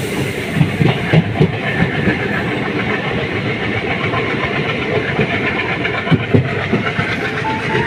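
Passenger train running at speed, heard from an open coach doorway: a steady rush of wheel and wind noise with irregular low clatter of the wheels over the rails, while another train's coaches pass close alongside.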